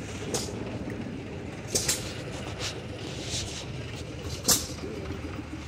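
Old machinery running: a steady low drone with a few short, sharp noises breaking over it, the loudest about two seconds in and again about four and a half seconds in.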